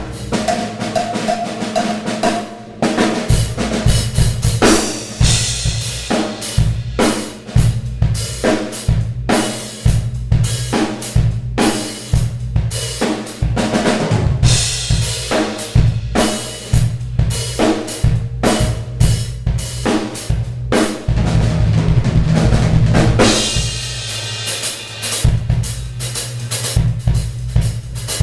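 Improvised solo on an acoustic drum kit: fast, dense bass drum, snare and tom strokes throughout, with cymbal crashes ringing out a few times.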